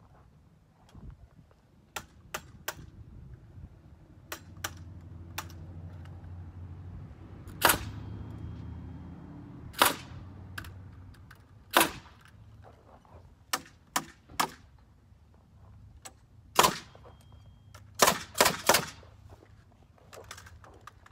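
Pneumatic framing nailer driving nails into the wall framing: about eleven sharp, loud shots spaced a second or two apart, with a quick run of four near the end. Lighter clicks and taps come first, and a low hum sits under the middle.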